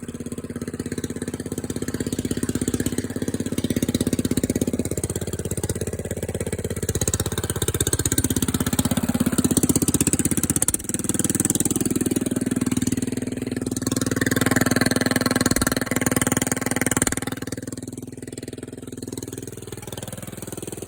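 Diesel engine running loud through a newly fitted long 2-inch exhaust, with the engine note swelling and easing a few times.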